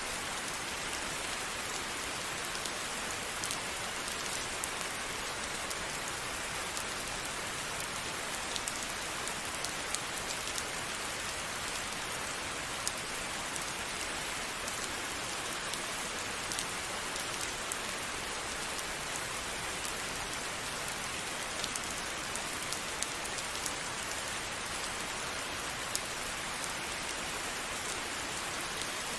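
Steady rain falling and pattering on a surface, an even hiss with scattered sharper drop ticks.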